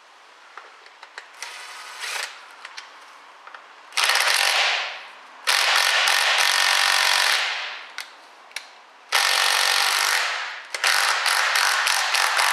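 Small cordless Makita power tool running in bursts on the Torx bolts of a ZF 6HP26 automatic transmission's sump pan. There are three long runs, each winding down as it lets off, and a stuttering run near the end. Light clicks and handling come before the first run.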